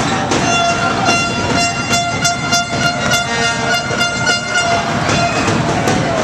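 A fan's horn sounding one long steady blast over a noisy basketball crowd, stopping about four and a half seconds in. Sharp rhythmic beats, about four a second, run through the middle.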